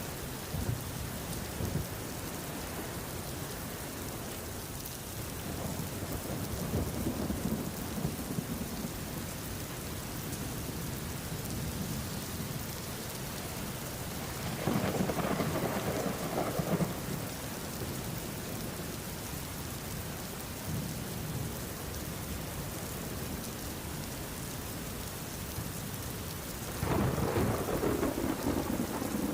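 Steady rain falling, with rolls of thunder: low rumbles early on, then two louder peals, one about halfway through and one near the end.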